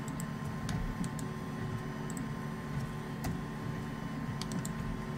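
A few light, scattered computer mouse and keyboard clicks over a steady electrical hum.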